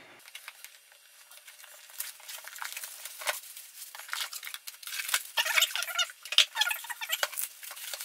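Plastic packaging crinkling and rustling as a boxed part is unpacked, with many small crackles and clicks. It starts faint and grows busier and louder from about two seconds in.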